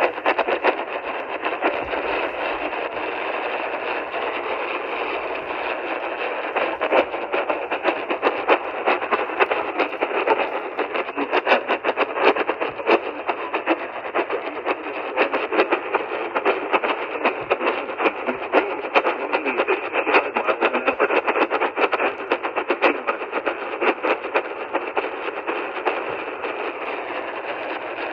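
Radio static from a weather radio receiver with no programme audio: a steady narrow-band hiss laced with constant crackling.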